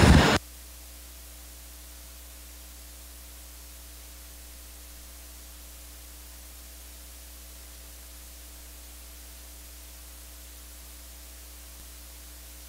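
Steady electrical hum and hiss, unchanging, after a loud noise cuts off abruptly at the very start.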